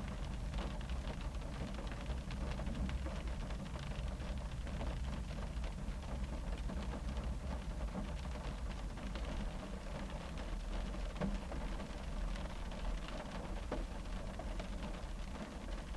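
Rain drumming on a car's roof and windows, heard from inside the cabin: a steady patter of many small drop ticks over a low, muffled rumble.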